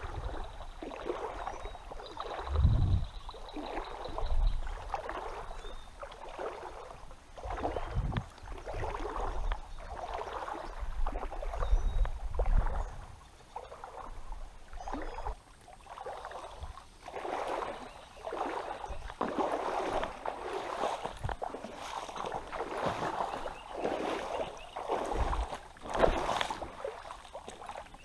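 Wading through shallow river water: repeated sloshing splashes, roughly one a second and busier in the second half, with a few dull low thumps.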